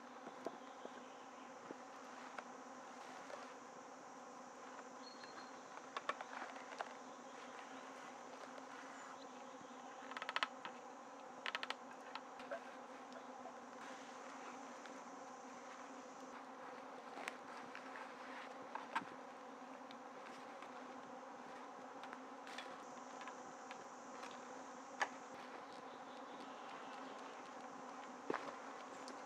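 Steady buzzing of insects in a summer forest, with occasional short knocks and clicks of wooden poles and rungs being handled as a ladder is put together.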